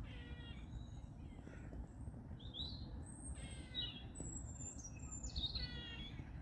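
Squirrels calling: a series of short, high, squeaky calls, some sliding upward in pitch, over a steady low background rumble.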